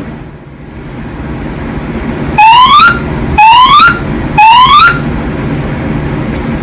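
Fire alarm voice-evacuation speakers sounding three rising whoop tones, each about half a second long and about a second apart, over a steady low hum.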